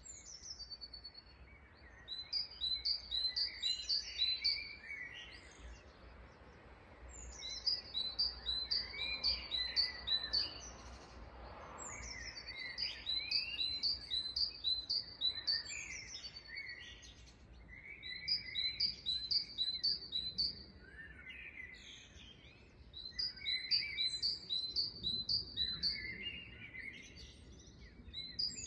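Several songbirds chirping and singing: one repeats a fast series of high, evenly spaced notes in phrases a few seconds long, about every five seconds, while others call with varied chirps in between.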